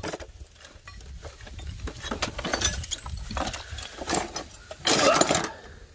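Rusty metal parts and old nails clinking and scraping in a wooden crate as hands dig through the pile, with a louder clatter about five seconds in.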